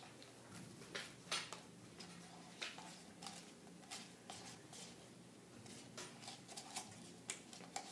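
Faint, scattered light clicks and taps of paper cups being handled as a mixture is poured and shaken from one cup into another.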